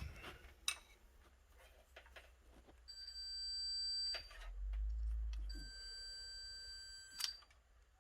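Two long electronic beeps, the first about 3 seconds in and the second, a little longer, a couple of seconds later, with scattered clicks and knocks around them.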